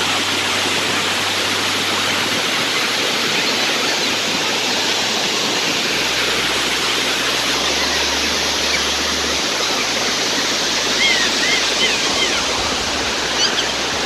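Waterfall: water pouring over rock, a steady rushing hiss.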